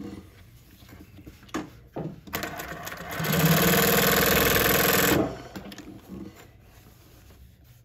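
JUKI LH-3528A twin-needle lockstitch industrial sewing machine stitching denim. It runs up at about two and a half seconds in, sews steadily for about two seconds, and stops a little after five seconds, with a few light clicks before and after the run.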